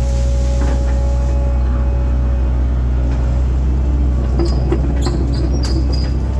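Link-Belt excavator's diesel engine running steadily under working load, with scattered knocks and clanks and a few short high squeaks in the second half.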